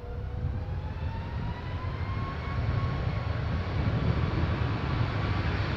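Jet airliner's engines spooling up to takeoff power: a whine that rises steadily in pitch over a low rumble that grows louder.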